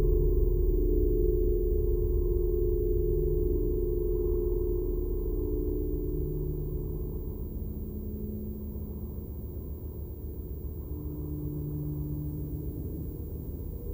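Experimental electronic ambient drone: a deep low hum under several steady, pure low tones that fade in and out one after another. The whole sound slowly gets quieter towards the middle and then swells a little near the end.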